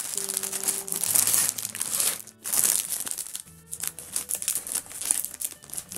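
Clear plastic bag of LEGO Technic pieces crinkling as it is shaken and handled, with scissors brought to the bag to cut it open in the second half.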